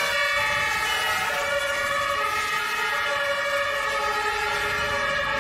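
Several German two-tone emergency-vehicle sirens (Martinhorn) sounding together, each stepping back and forth between a high and a low note, out of step with one another.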